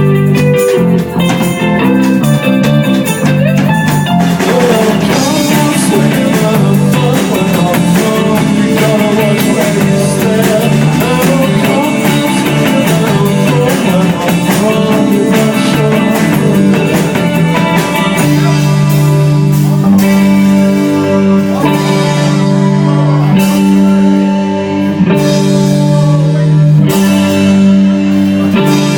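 Live indie rock band playing loudly on guitars and drum kit. A picked guitar line opens, the full band thickens about four seconds in, and later the band settles into sustained chords struck in a steady rhythm.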